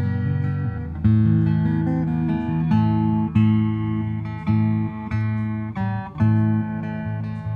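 Fender Presonic acoustic-electric guitar played, strumming chords about once a second and letting each ring.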